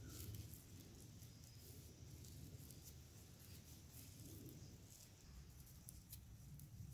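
Faint rustling and crackling of green grass blades being twisted by hand into a braided grass rope, with scattered small ticks.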